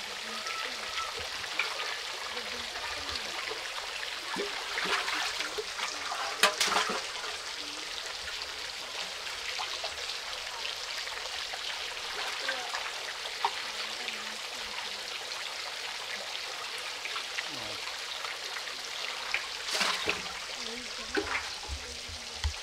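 Steady running water. A few short, sharp knocks or splashes stand out, most clearly about six seconds in and again about twenty seconds in.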